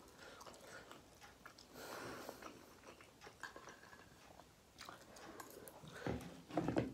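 A person chewing a mouthful of carbonara instant noodles close to the microphone, with small scattered mouth clicks.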